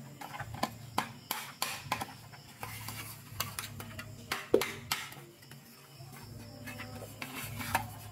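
Small hard plastic toy pieces being handled, a run of irregular clicks and taps, with one sharper knock about halfway through.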